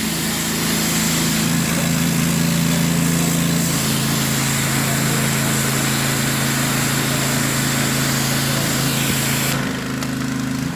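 An engine-driven jet-cleaning lance running steadily, the engine's hum under the loud hiss of the jet blasting muck out of paving joints. The jet cuts off about nine and a half seconds in, leaving the engine running.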